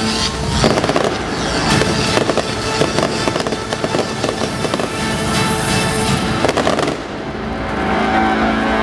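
Fireworks going off in a rapid, dense barrage of pops and bangs over music. About seven seconds in the barrage thins out, leaving the music with a few scattered pops.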